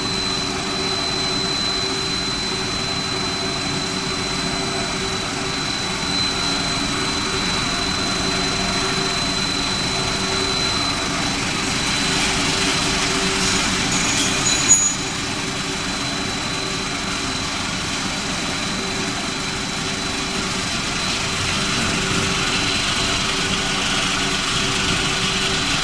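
Snack production line machinery running steadily, a constant hum with a thin high whine over it. A short sharp clatter stands out about fifteen seconds in.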